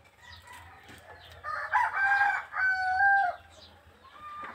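A rooster crowing once, starting about a second and a half in and lasting about two seconds, in a stepped call that holds level and then drops.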